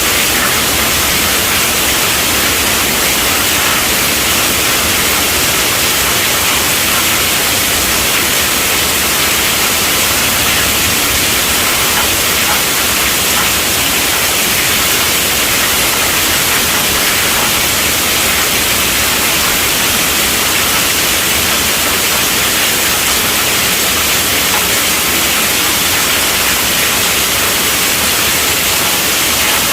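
Heavy rain falling steadily on a tent roof: an even, unbroken hiss with no thunder.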